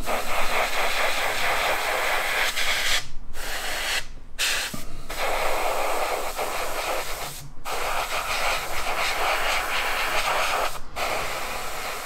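Airbrush spraying thinned matt acrylic varnish: a steady hiss of air and paint that cuts off briefly five times and starts again.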